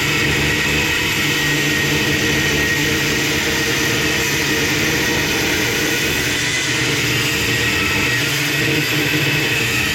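Angle grinder with a cut-off wheel running steadily under load, cutting through the thick steel shell of a hermetic Sanyo compressor, with a steady high whine over the motor's hum.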